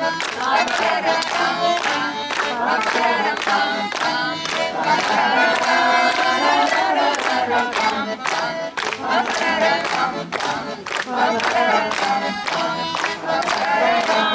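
Song with a steady beat and several voices singing together.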